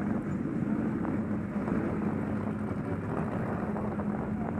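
Motorcycle engines running steadily at low speed, a low even drone, from the camera bike and the motorcycles moving off around it.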